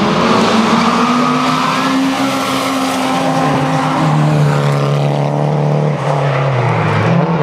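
Toyota Corolla rally car's engine revving hard as it slides through a tarmac corner, its note climbing for the first few seconds, then dropping about four seconds in and holding lower, with tyres skidding.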